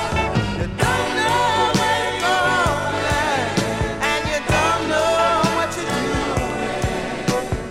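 1970s soul record playing: a full band with a steady beat and bass, and a wavering melodic line over it.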